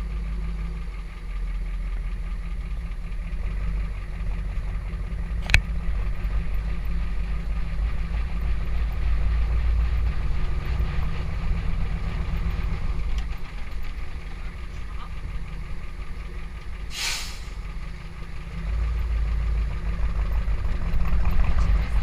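Engine of an off-road truck on large lugged tyres running at low speed, a steady low rumble that grows louder near the end. A sharp click about five seconds in and a short hiss about seventeen seconds in.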